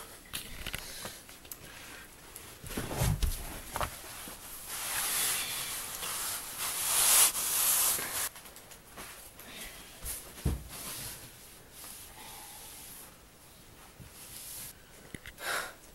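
Household items being pulled out from under a flooded kitchen sink: scattered knocks and clunks, with a longer rustling hiss in the middle and a heavier thud about three seconds in and again about ten and a half seconds in.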